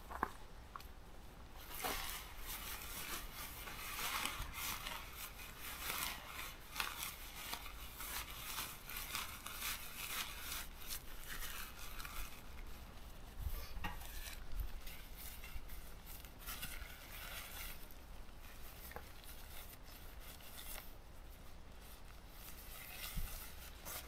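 Tent fabric rustling and scraping in irregular handfuls as the tent is rolled up and stuffed into its stuff sack.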